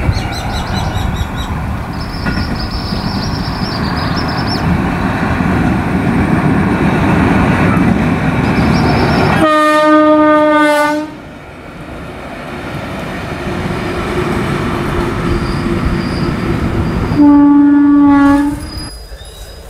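WAP-4 electric locomotive running light, its wheels rumbling on the rails and growing louder as it approaches. It gives two long blasts of its horn, each about a second and a half, one about halfway through and one near the end.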